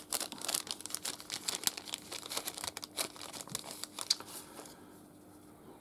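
Packaging crinkling and rustling as it is handled, with quick irregular clicks and taps. It dies down to faint room noise about five seconds in.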